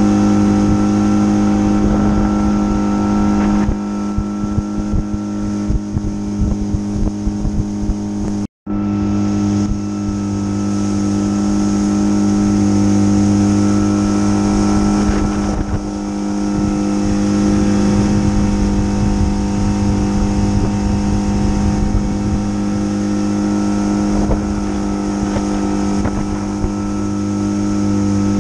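A fishing boat's motor running steadily at cruising speed, with wind buffeting the microphone. The sound cuts out for an instant about a third of the way in.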